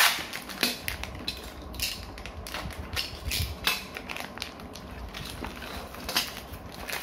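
Cardboard packaging of a Beyblade random booster being opened and handled by hand: irregular small clicks, taps and rustles, with sharper knocks about half a second in and near two and six seconds.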